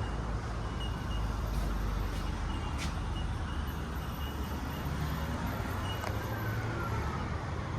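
Steady rumble of road traffic. About six seconds in, a siren's wail starts, one slow falling sweep.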